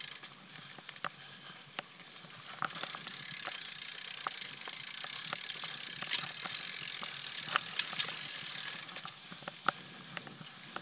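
Mountain bike ridden along a dirt trail: scattered clicks and rattles from the bike jolting over bumps. A steady hiss of rolling and rushing air rises about three seconds in and drops away near nine seconds.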